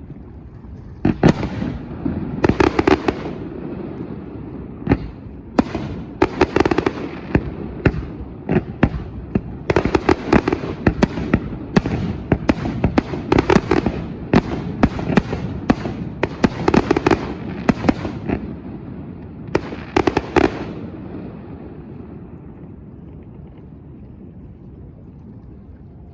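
Aerial fireworks shells going off in volleys of sharp bangs and crackling over a low rumble, the densest run in the middle; the bursts stop about 21 seconds in, leaving only a faint low rumble.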